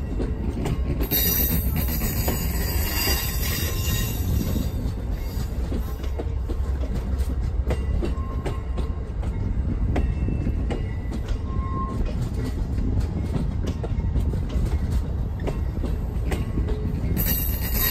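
Train running on track: a steady low rumble with many short clicks and knocks from the wheels.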